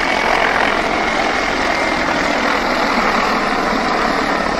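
Mi-35M attack helicopter flying low overhead: a loud, steady rush of turbine and rotor noise.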